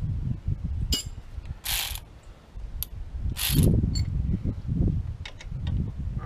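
Hand ratchet wrench clicking as a nut and bolt are tightened down, with two short, louder runs of clicks a little under two seconds apart over low handling clatter.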